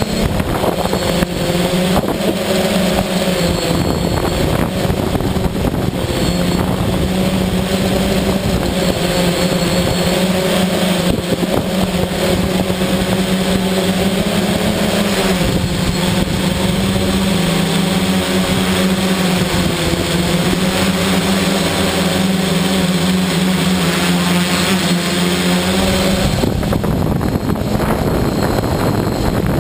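Electric motors and propellers of a Darley Stinger multirotor drone humming in flight, their pitch stepping up and down as the throttle changes. About 26 seconds in, the hum gives way to a steady rushing noise, like wind on the microphone.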